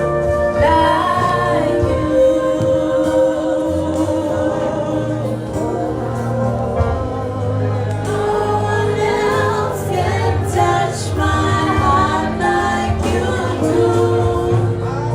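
Gospel worship music: voices singing held notes over a steady instrumental backing.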